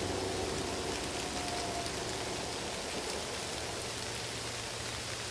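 Rain falling steadily, an even hiss that fades slowly, with a faint low hum underneath.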